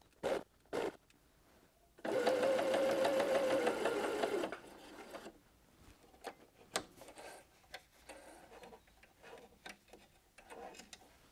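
Pfaff Ambition sewing machine stitching stretch jersey with its integrated dual feed engaged: a couple of short bursts in the first second, then a steady run of about two and a half seconds. After that come a few light clicks and rustles.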